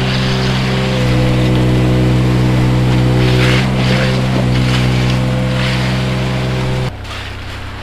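Heavy construction machine's engine running steadily with a loud drone, which cuts off suddenly near the end and leaves a lower, quieter hum.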